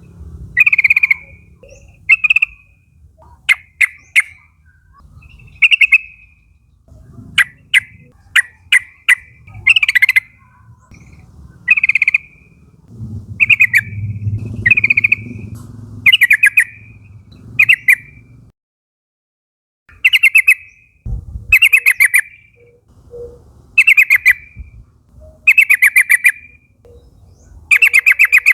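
Yellow-vented bulbuls calling: short, buzzy chattering notes repeated every second or two, with runs of sharp clicking notes, and a brief pause about two-thirds of the way through.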